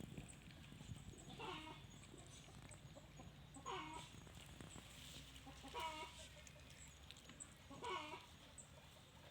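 Faint short animal calls, four of them, evenly spaced about two seconds apart.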